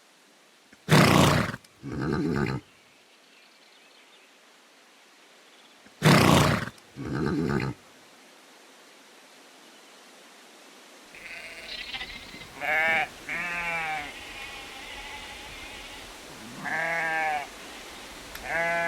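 Two pairs of loud, rough animal calls, each pair about a second apart. Then a few bleats with a wavering, quavering pitch from farm livestock such as sheep or goats.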